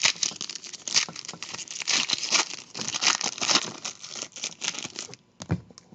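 The plastic wrapper of a 2018 Diamond Kings hobby pack crinkling as it is torn open and handled, with many sharp little crackles. A single low thump comes near the end.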